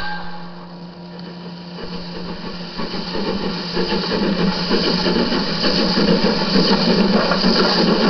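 OO gauge model locomotive running along the track with a steady motor hum and rail noise, growing louder over the first few seconds and then holding steady.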